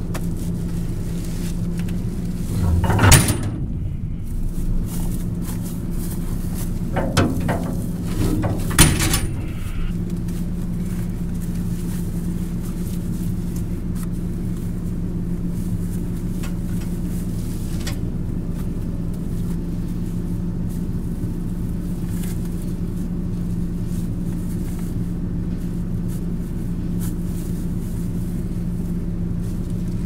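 Tractor engine idling steadily, with sharp metal clunks and rattles about three seconds in and again around seven to nine seconds in as a net-wrap roll is handled and fitted on the round baler.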